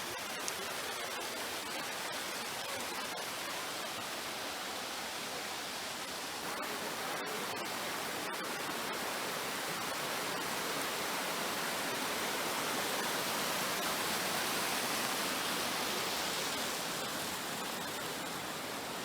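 Rain-fed waterfall and stream pouring over rock, a steady rushing hiss that swells a little in the middle. The flow runs full because it has been raining for days.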